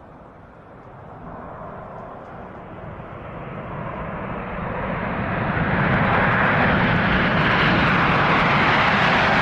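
Jet engines of a Boeing 747-8 freighter (four GE GEnx turbofans) on the runway, growing steadily louder as the jumbo jet rolls closer, then a loud steady jet noise from about six seconds in.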